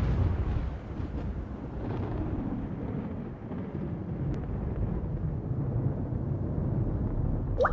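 A low, steady rumbling drone of cinematic sound design under the title cards. Near the end a single water-drop plink rises sharply in pitch.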